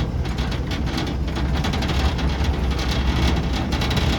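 A 1983 Jeep CJ5's 4.2-litre straight-six runs at low speed while crawling in four-wheel-drive low, making a steady low drone. Scattered crackling and clattering sound over it throughout.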